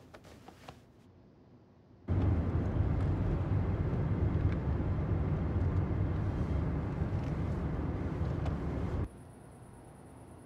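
Steady low rumble of a car driving, heard from inside the cabin. It starts abruptly about two seconds in and cuts off sharply about nine seconds in.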